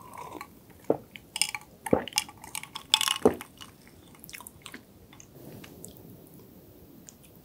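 Close-miked gulping as a person drinks from a glass mug: three loud swallows about a second apart with small wet mouth clicks, then only faint mouth sounds and light rustling.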